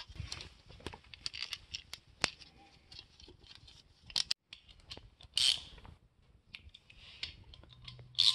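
Bolts being fitted and threaded by hand into an aluminium differential cover on a Ford 8.8 axle: scattered light metal clicks and ticks with rubbing and scraping, and a louder scrape about five and a half seconds in.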